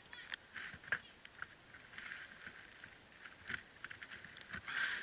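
Light scattered clicks and scrapes of metal chopsticks against a wire grill rack, with crinkling aluminium foil, as cooked chicken is pulled apart; the rustling is loudest near the end.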